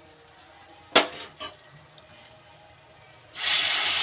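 Two short metal clinks against the pan, then about three seconds in a sudden loud hiss and sizzle as sugar syrup is poured onto wheat flour roasting in hot ghee.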